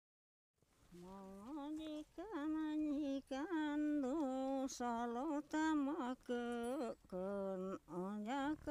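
A single voice singing a slow, wordless-sounding melody in long held notes with wavering ornaments, starting about half a second in after a brief silence, with short breaks between phrases.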